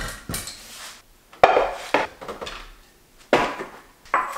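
Kitchen items, including a wooden knife block holding its knives, being picked up and set down on a granite countertop. They make a series of separate knocks and clatters, the loudest about a second and a half in and again just after three seconds.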